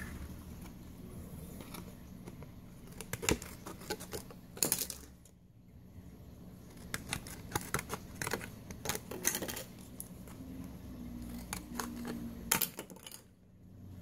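Stiff clear plastic blister packaging crackling and clicking as it is handled and cut with scissors, in irregular clusters of sharp snaps with short pauses between.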